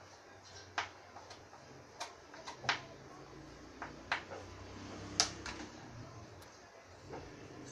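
Kitchen knife chopping meat on a plastic cutting board: a series of sharp, irregularly spaced knocks of the blade striking the board.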